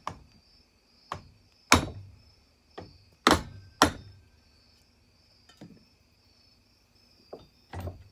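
A hammer tapping a screwdriver wedged in a chainsaw bar's groove, metal striking metal about nine times at uneven intervals, the three hardest blows in the middle. The blows are driving the screwdriver down to spread the bar's pinched rails.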